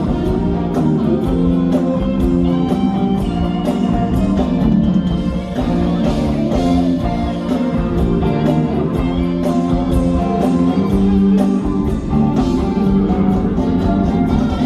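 Live rock band playing, with guitar to the fore over a steady drum beat.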